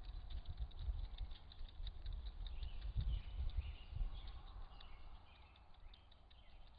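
Red fox kits jostling to nurse under the vixen: faint high squeaks among small scuffling clicks, over low thumps and rumble on the microphone that ease off about halfway through.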